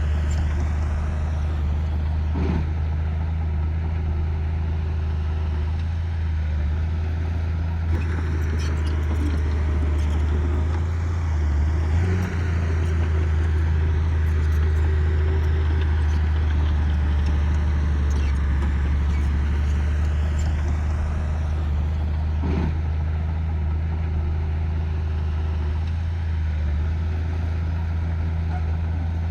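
Diesel engine of earthmoving machinery running steadily with a deep, constant drone. A few short clanks break through now and then.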